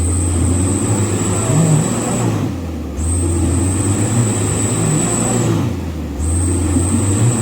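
Mitsubishi Canter HD's four-cylinder diesel engine revving hard in repeated surges, easing off briefly about every three seconds, with a thin high whine during each surge: a heavily loaded truck straining to push through slippery mud.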